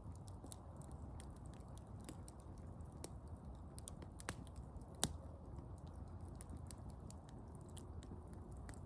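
Small, dim campfire crackling faintly with scattered ticks and pops, and two sharper pops about four and five seconds in.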